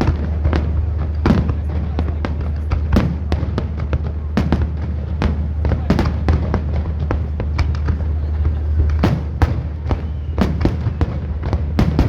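Fireworks display: shells bursting in quick, irregular succession, well over a dozen sharp bangs, over a steady low hum.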